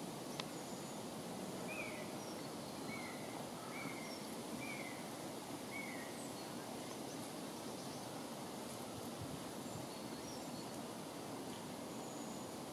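Steady outdoor background noise in woodland, with a bird giving a run of about five short, falling chirps in the first half and fainter high, thin bird notes scattered throughout.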